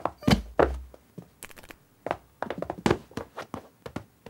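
Cartoon sound effects of a small kitten scampering: two soft thumps near the start, then a run of quick, light paw taps.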